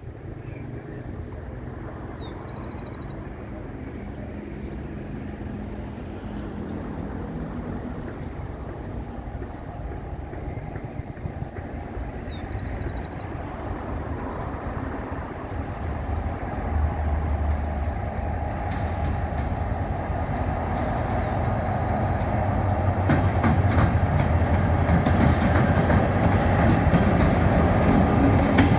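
A GT22CW-2 diesel-electric locomotive approaching, its diesel engine's low drone growing steadily louder. The clatter of wheels over rail joints comes in near the end as the train draws close.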